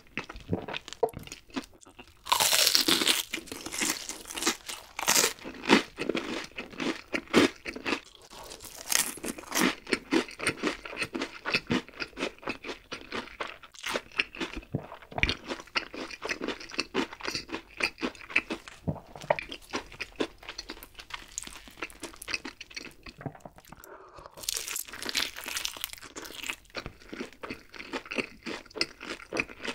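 Close-miked crunching and chewing of deep-fried menbosha (shrimp toast), with a loud crisp bite about two seconds in and steady crunchy chewing after. A second loud, crunchy bite comes a few seconds before the end.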